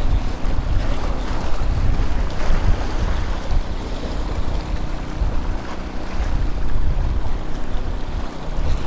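Wind buffeting the microphone over the wash of small waves breaking against the jetty's rocks.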